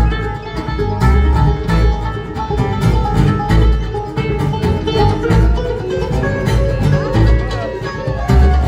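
Bluegrass band playing an instrumental passage live: banjo and guitar picking over a steady bass pulse. A lead instrument plays gliding, bending notes near the end.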